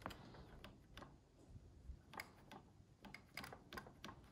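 Faint, irregular small clicks and taps from hands handling the metal chassis and levers of a Nakamichi 600 cassette transport mechanism, about a dozen, more of them in the second half, over near silence.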